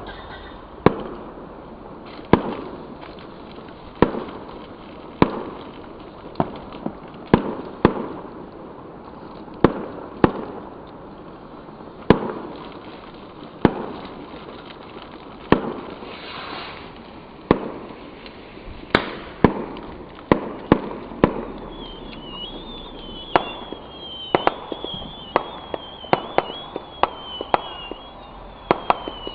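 Fireworks going off: a string of sharp bangs, each with a short echoing tail, at irregular intervals and coming thicker near the end. From about two thirds of the way in, a high wavering whistle from a whistling firework runs over the bangs.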